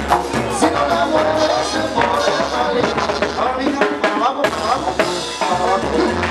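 Live Mexican banda music: brass and drums playing a dance tune with a steady beat.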